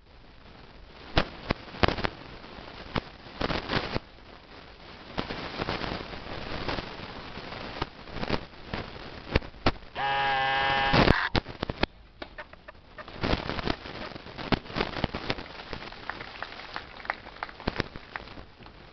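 Tennis balls struck by rackets and bouncing on a grass court: a string of sharp, irregular pops. About ten seconds in, a single held, pitched call lasts about a second.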